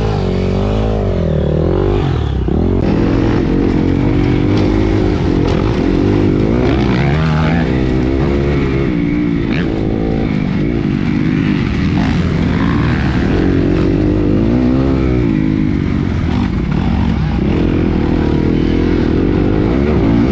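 Motocross bike's engine heard close up from on board while it is ridden round a dirt track, the revs rising and falling over and over with throttle and gear changes.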